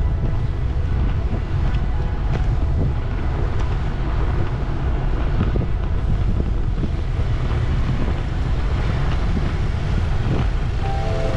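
Wind buffeting the microphone of a camera on a moving bicycle, a steady low rumble, with road traffic noise mixed in.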